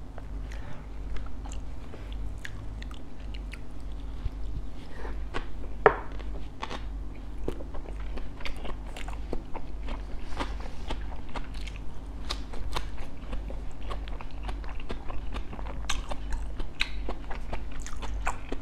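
Close-miked chewing and crunching of bánh khọt, crispy-fried Vietnamese mini pancakes topped with shrimp: a continuous run of small mouth clicks and crunches, with one sharper crunch about six seconds in, over a steady low hum.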